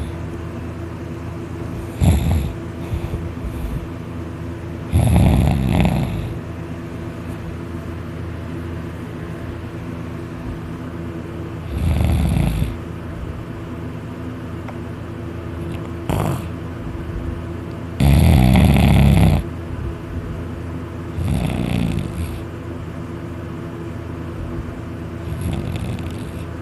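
A person snoring very hard in deep sleep: loud snores at irregular intervals of a few seconds, the longest and loudest about 18 seconds in, over a steady low hum.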